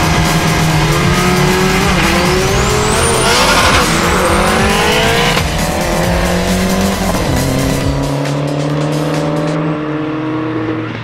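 Drag-racing cars accelerating hard from the start line, engine pitch climbing and dropping back several times as they shift up through the gears, with tyre noise at the launch. Music plays underneath.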